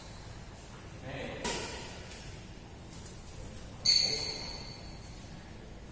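Badminton racket striking a shuttlecock once, about four seconds in: a sharp hit with a high ringing ping that carries on for about a second in the hall. A smaller knock comes a little over a second in.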